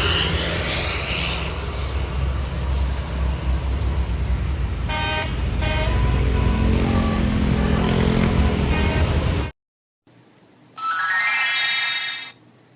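Heavy bus engine running with a low rumble, and a multi-tone telolet horn giving two short toots about five seconds in. The sound then cuts off abruptly, and after a pause a short tone rises in pitch.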